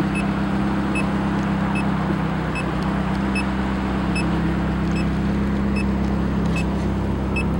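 Straight-piped Ferrari F430 V8 running steadily at low revs, heard from the open-top cabin, with no revving. A faint light tick repeats about every 0.8 s over it.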